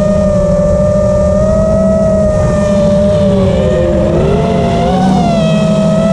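FPV quadcopter's electric motors and propellers whining steadily, heard from the camera on board, over a low wind rumble. About halfway through, some of the motor tones dip and rise again as the drone turns.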